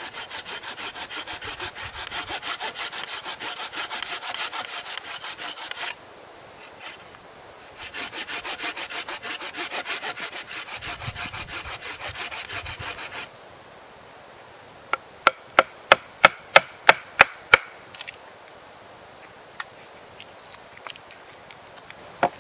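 Folding pruning saw cutting a notch into a birch pole in fast, even back-and-forth strokes: two runs of sawing with a short pause between. Then a quick run of about ten sharp knocks, about four a second, and a few light clicks.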